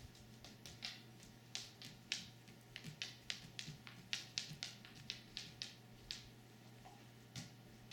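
A Doberman's claws clicking on a hardwood floor as it walks about: about twenty light, irregular ticks, loudest in the middle, over a faint steady hum.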